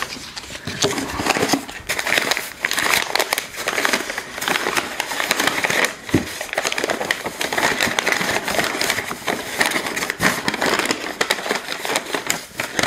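Crumpled brown kraft packing paper being pulled and handled in a cardboard box, crackling and crinkling steadily.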